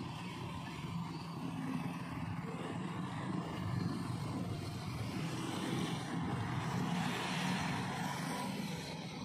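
Road traffic: motor vehicles running and passing, a steady low engine hum with a louder wash as one goes by about six to eight seconds in.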